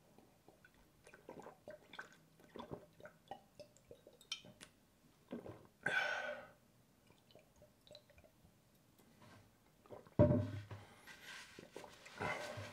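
Drinking water from a glass bottle: small wet clicks of gulping and swallowing, then a breathy exhale about six seconds in as the bottle comes down. A short, loud, low voiced sound follows about ten seconds in.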